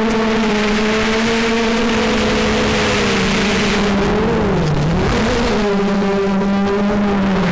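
FPV racing quadcopter's motors and propellers whining at a steady pitch under a rush of wind, heard from the camera on board; the pitch dips briefly past the middle as the throttle eases, then comes back up.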